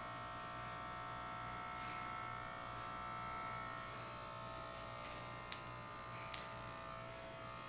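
Electric hair clippers buzzing steadily as they shave hair from a head, with two light clicks about five and a half and six seconds in.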